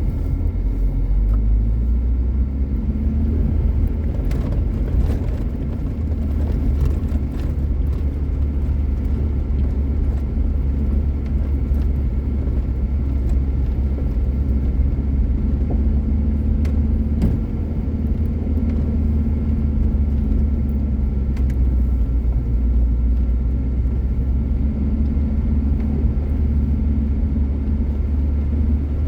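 Motor vehicle driving up a snowy mountain track, its engine and tyres giving a steady low rumble, with a few light knocks.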